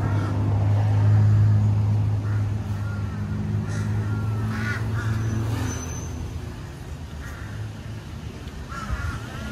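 A heavy road vehicle's engine running close by, a low steady hum that is loudest a second or two in and fades out about six seconds in. Crows caw a few times over it.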